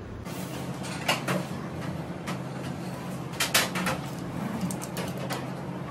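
Scattered knocks and clicks of a knife and a whole fish being handled and cut on a plastic cutting board. The loudest cluster comes about halfway through, with lighter ticks after it, over a steady low hum.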